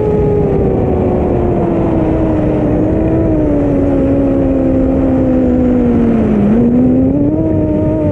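Motors and propellers of a Chimera 7 long-range FPV quadcopter in flight: a steady whine over a rushing noise. The whine falls slowly in pitch as the throttle is eased back in the descent, dips lowest about six seconds in, then rises again as the throttle is brought back up.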